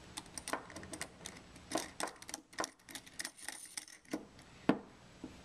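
Stainless steel tri-clamp being fitted around a sampler body and its nut turned by hand: irregular small metal clicks and clinks, the sharpest about four and a half seconds in.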